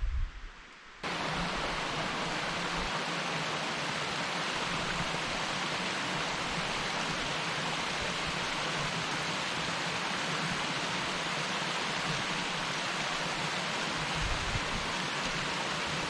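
Steady rushing of a small mountain stream cascading over rocks, starting abruptly about a second in after a brief quieter stretch.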